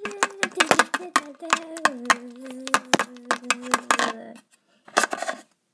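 A high voice held on long steady notes that step up and down in pitch, over a rapid, irregular run of sharp clicks. Both stop about four seconds in, followed by a short burst of hissy noise.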